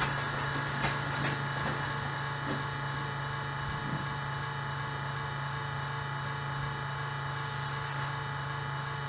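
Steady electronic hum and whine from a laptop, with a low hum and many fixed higher tones that hold constant throughout, which the owner puts down to the motherboard or something in the laptop. A few faint knocks sound in the first few seconds.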